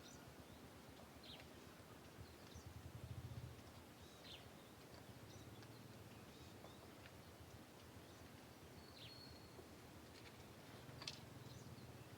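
Near silence: faint outdoor background with a few scattered, brief high chirps, likely from birds.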